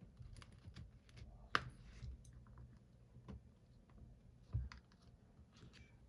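Faint, scattered small clicks and taps of a prying tool working along the edge of an iPhone 14 Pro Max screen, separating it from the frame. A sharper click comes about one and a half seconds in and a duller knock about four and a half seconds in.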